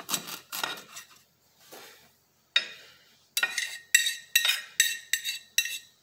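Kitchen knife cutting ginger on a plate: a few soft cuts in the first second, then from about two and a half seconds in a quick run of sharp clinks, roughly two or three a second, as the blade strikes the plate and rings.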